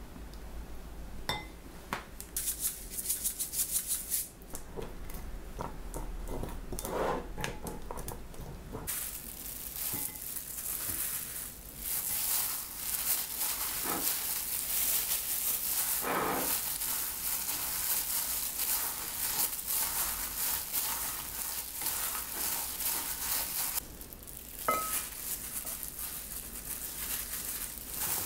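A wooden spoon stirring and scraping thick red pepper-paste seasoning in a ceramic bowl, with scattered clicks of spoon on bowl. After about nine seconds it gives way to a plastic-gloved hand tossing and squishing food in the sticky seasoning, with continuous crinkling of the glove.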